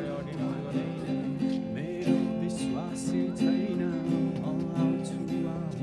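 Acoustic guitar strummed in steady chords while a man sings along.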